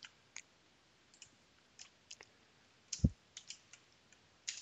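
Faint, scattered computer keyboard keystrokes and clicks, with a low thump about three seconds in and a quick run of keystrokes near the end.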